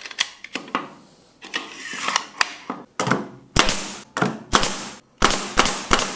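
Pneumatic brad nailer: a few light clicks as a strip of brads goes into the magazine, then from about halfway a rapid run of sharp shots, about three a second, driving 1-inch brads into a wooden board.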